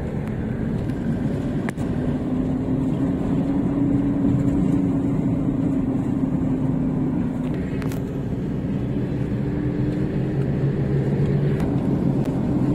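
Car engine and tyre noise heard from inside the cabin while driving: a steady drone with an engine hum that shifts in pitch as the car goes, and a few faint clicks.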